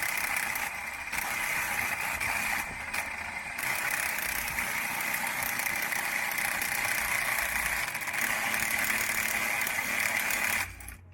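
A power tool cutting into steel runs steadily for about ten seconds, then cuts off suddenly near the end.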